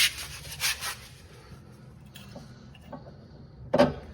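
Hand work on a car's suspension: two short scraping rubs at the start, then a single loud clunk near the end, as of metal parts being handled and pushed into place.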